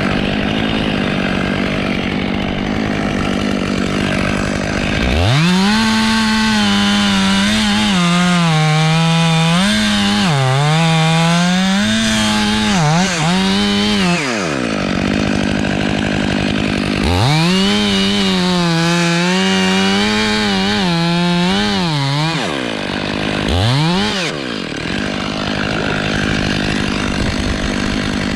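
Chainsaw revved up and cutting through wood in two long stretches, its pitch sagging and wavering under load, with a short rev near the end. Between the cuts a steady engine drone continues.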